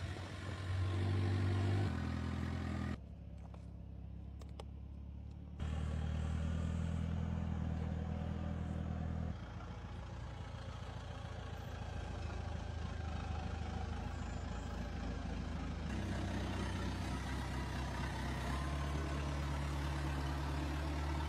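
Ingersoll-Rand VR-90B telehandler's diesel engine running, holding a steady pitch in each stretch and shifting in speed and level a few times.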